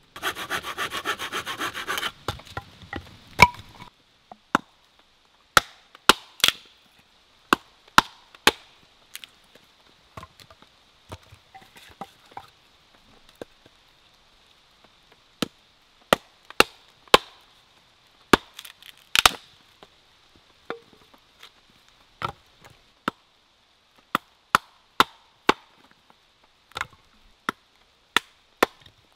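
Hatchet splitting small sticks into kindling on a chopping log: sharp, irregular wooden knocks about every second, the loudest a quick double strike a little past the middle. It opens with a couple of seconds of rapid rasping.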